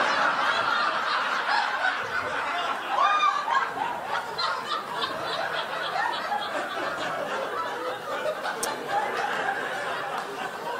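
A comedy club audience laughing together after a punchline, a long spell of many overlapping laughs that eases slightly toward the end.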